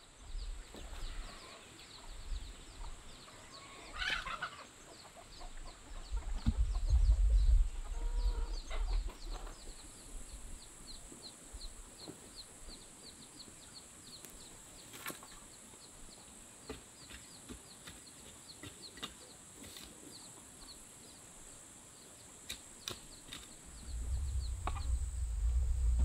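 Farmyard ambience: chickens clucking now and then over a steady high drone of insects with a fast run of even chirps. Scattered knocks come from work at a wooden fence post. A low rumble swells about seven seconds in and again near the end, and it is the loudest sound.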